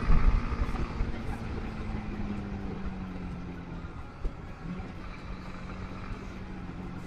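Motorcycle engine running at low speed in slow traffic, a steady hum that drops in pitch about halfway through and then holds. A low wind rumble on the microphone is loudest at the start and fades away.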